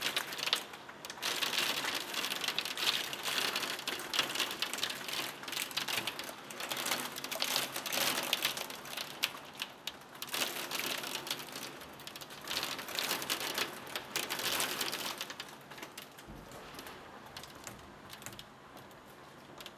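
Heavy wind-driven rain pelting a window, a dense patter of drops striking the glass that comes in gusty surges and eases over the last few seconds.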